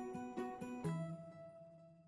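Instrumental background music: a few quick plucked notes, then a last note about a second in that rings on and fades away.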